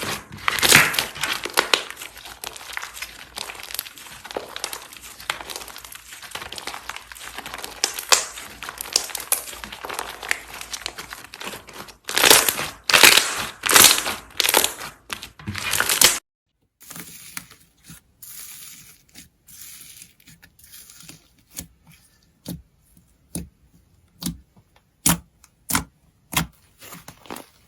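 Slime being squished and stretched, making a dense crackling full of small pops. About sixteen seconds in it cuts off, then turns to quieter, sparser clicks and pops.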